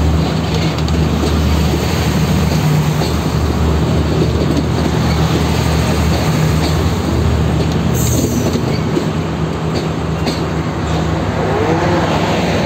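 Diesel passenger train pulling out along the platform. A steady low engine drone runs under the rumble and clatter of its carriages' wheels on the rails.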